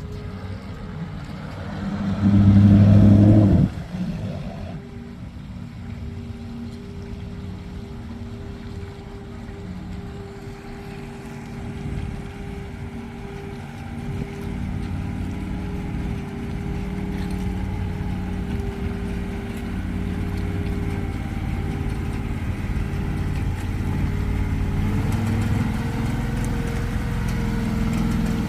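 Engine of an amphibious boat running steadily, its hum slowly growing louder. About two seconds in there is a loud burst of over a second that cuts off sharply.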